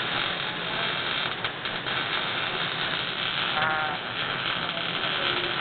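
MIG welding arc running steadily with its continuous crackle, laying an overhead fillet weld.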